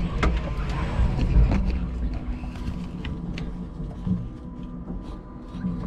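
A 5-ton electric forklift truck driving across a warehouse floor: a steady low rumble with a faint electric hum, and scattered ticks and knocks, mostly in the first few seconds.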